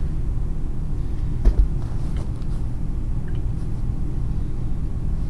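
Steady low machinery rumble, with a dull knock about a second and a half in and a few faint clicks as a socket wrench tightens the valve's securing nuts.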